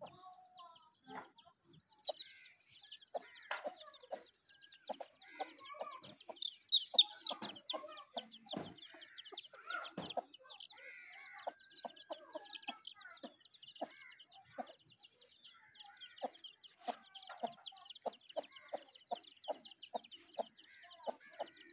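Mother hen clucking in short, repeated clucks while her chicks peep constantly in quick, high, falling notes, loudest about seven seconds in. A steady high hiss runs underneath.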